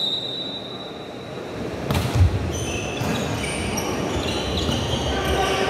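Indoor volleyball rally on a wooden court in a reverberant hall. A short high whistle blast comes at the start, and a ball is struck hard about two seconds in. Players' shoes then squeak repeatedly on the court over a low crowd murmur.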